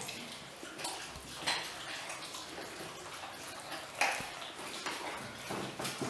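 Weimaraner puppies chewing chicken wings: scattered clicks, crunches and wet smacking, the sharpest click about four seconds in.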